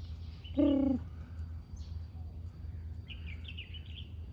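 Peahen giving one short, low call about half a second in. Faint high chirps from small birds follow near the end.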